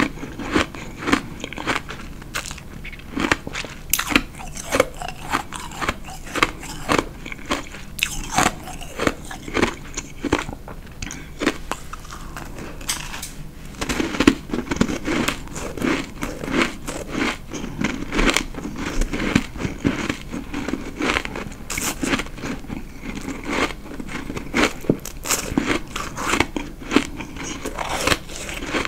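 Close-miked biting and chewing of white, powdery-looking ice in the mouth: a steady run of crisp crunches, growing denser about halfway through.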